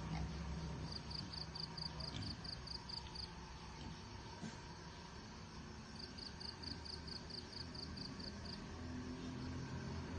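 An insect chirps in two bouts of rapid, evenly spaced high pulses, about five a second, each bout lasting two to three seconds, over a low steady background rumble.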